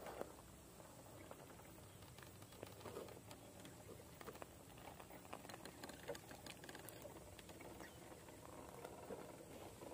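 Faint, irregular clicking and patter of an RC rock crawler's tyres scraping and crumbling grit on rock as it climbs slowly.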